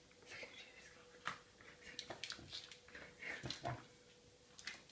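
Dog making short, soft whining calls while begging for food, with a few small clicks and taps.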